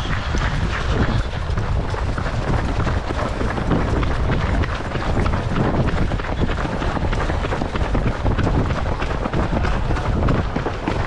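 Wind rumbling on the microphone of a camera carried by a running runner, over the footsteps of many runners around it.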